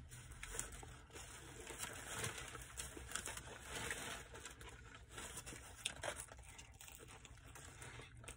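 Paper sandwich wrapper crinkling and rustling as the sandwich is handled in it, with some chewing.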